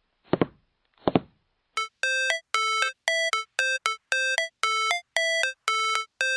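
Three short sounds in the first second, then a synthesized electronic beeping tune: clean, short notes of two alternating pitches at about three a second, like a ringtone or synthesizer intro to music.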